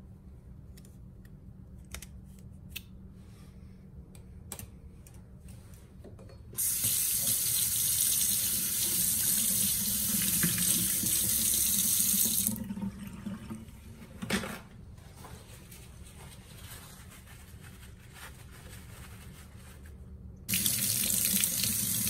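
Kitchen faucet running into a stainless steel sink for about six seconds and then shut off, with a single knock a couple of seconds later. The tap comes on again near the end, and the water splashes over a small plastic water filter part held under the stream to rinse it.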